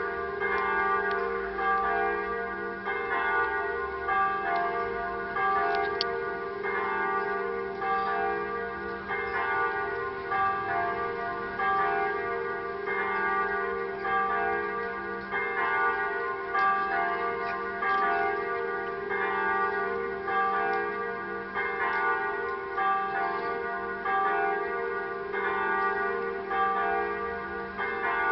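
Electronic church bells sounding from the tower's loudspeakers: several bell tones struck over and over in a steady, overlapping peal, rung for Mass.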